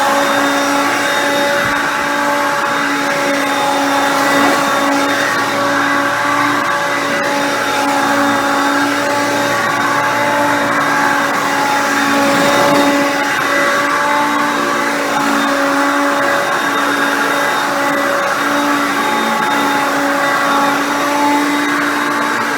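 Hoover Concept Two upright vacuum with a 5.6-amp motor running steadily as a loud, even whine with a rushing airflow hiss. Its brushroll spins freely on a freshly fitted belt and no longer struggles.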